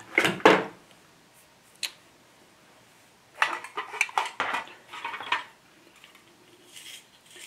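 Small hard objects knocking and clinking, as pencils are handled and rummaged through in a metal tin. There are a couple of knocks at the start, a single click about two seconds in, and a burst of rattling clinks a little past the middle.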